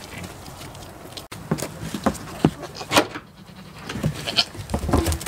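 Goats moving about, with a string of short knocks and scuffs from their hooves on the ground and a plastic tub.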